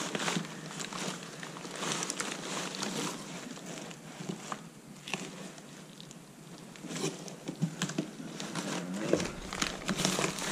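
Crumpled packing paper and plastic wrap rustling and crinkling as a wooden camera is handled inside a cardboard box. The rustle is quieter in the middle and busier again near the end.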